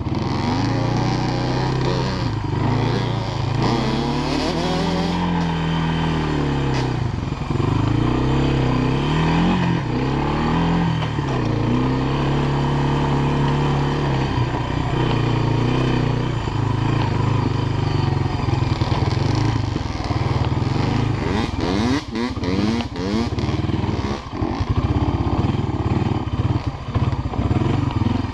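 Honda FourTrax ATV engine running under the rider's throttle, its revs rising and falling repeatedly. In the second half it runs more steadily over rough ground, with rattles and knocks from the machine jolting along the dirt trail.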